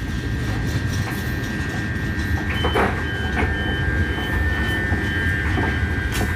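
A train running on the rails with a continuous low rumble and irregular clicks and knocks from the wheels on the track. A steady high tone runs through it.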